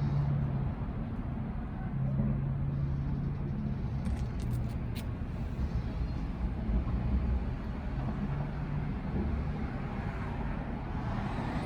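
Steady low rumble of road traffic, with a low humming tone and a few faint clicks about four to five seconds in.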